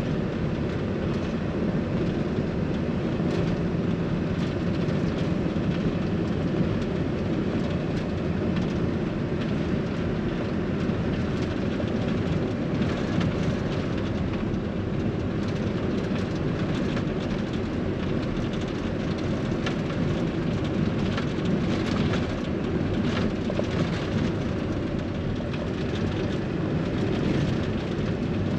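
Steady road and engine noise of a car driving at cruising speed, heard from inside the cabin: an even low rumble with tyre hiss.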